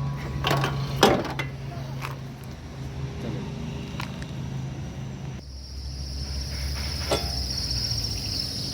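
Scattered metal clicks and knocks from hand-tool work on a car's disc brake during a brake pad change, the loudest about a second in, over a low steady hum. About halfway through, a steady high cricket chirring starts.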